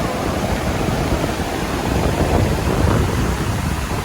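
Hjálparfoss waterfall rushing steadily, a continuous wash of falling water, with wind rumbling on the microphone.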